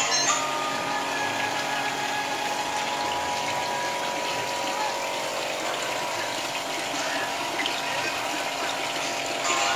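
Water spilling in thin streams from a stone garden fountain's trough into a pond: a steady splashing.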